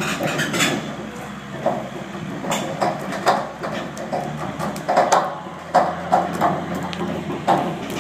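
A forklift engine running steadily under irregular knocks and clanks from the ship's wheeled steel cradle as it is pushed along.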